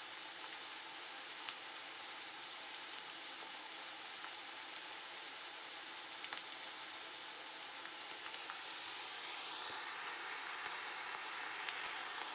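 Sliced onions, bay leaf and dried red chillies frying in hot mustard oil in a kadhai: a steady sizzle with occasional small crackles, getting louder about nine seconds in.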